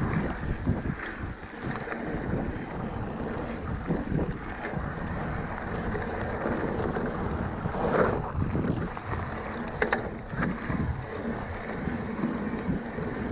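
Cannondale Moterra electric mountain bike rolling fast over a dirt and gravel trail: wind rushing over the handlebar camera's microphone, with the rumble of the tyres and the frame rattling. A louder knock comes about 8 seconds in and sharp clicks about 10 seconds in as it hits bumps.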